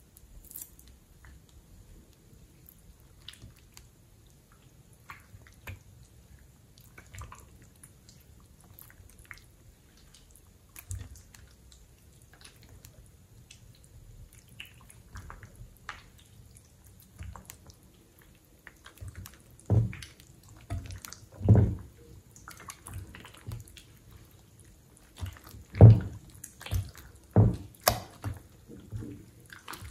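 Wet slime being stirred, then squeezed and stretched by hand in a glass bowl: soft squishing, sticky crackles and dripping. In the last third there are about four louder wet squelches as handfuls of slime are pressed and dropped back into the bowl.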